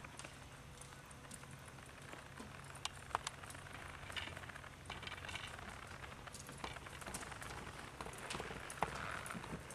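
Horse loping on the soft dirt footing of an indoor arena: faint muffled hoofbeats with scattered sharp clicks at uneven intervals.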